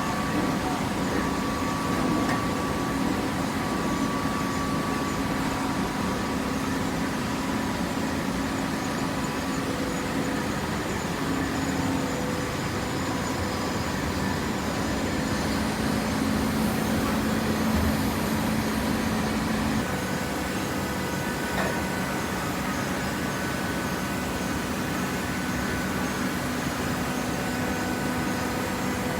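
A machine's motor running steadily: a hum with several steady tones over a mechanical noise bed, the tones shifting slightly in pitch about 11 and 20 seconds in.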